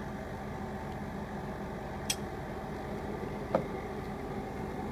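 Outdoor unit of a 2010 1.5-ton Mitsubishi Electric air conditioner (MU-E10VC) running in cooling mode: a steady hum of the blanketed compressor and condenser fan, decently quiet. Two brief clicks are heard about two and three and a half seconds in.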